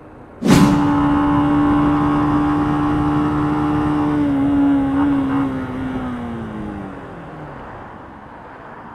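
Yamaha YBR125 single-cylinder four-stroke engine running at steady revs, then falling steadily in pitch and fading over a few seconds as the motorcycle slows to stop at a yellow light. It cuts in suddenly about half a second in.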